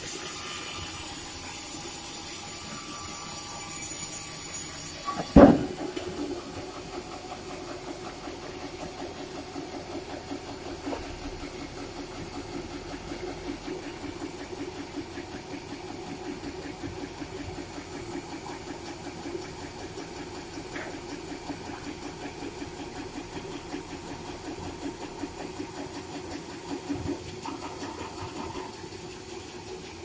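STW log band saw running and ripping a large red meranti log, a steady machine drone with a fast, even pulsing. One loud knock comes about five seconds in.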